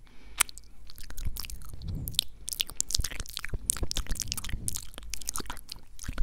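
Close-miked ASMR mouth sounds: a rapid, irregular run of clicks and smacks from the lips and tongue.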